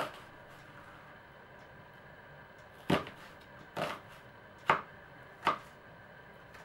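Kitchen knife slicing an onion on a plastic cutting board: sharp strokes of the blade against the board, one at the start, then four more about a second apart from about three seconds in.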